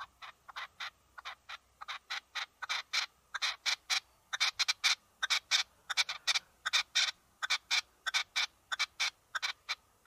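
Partridge calling: a long run of short calls, about three a second and often in pairs, growing louder over the first few seconds and then holding steady.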